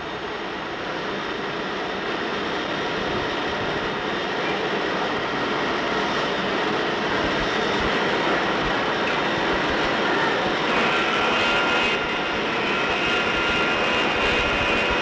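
Steady machinery noise of a golf club assembly workshop, a continuous din that swells slightly over the first few seconds. A higher, steady whine joins in about eleven seconds in.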